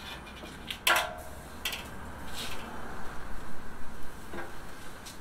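Metal clinks and taps at an open pit barrel cooker as wired temperature probes are pulled out of hanging chickens: one ringing clink about a second in, then a few softer ticks.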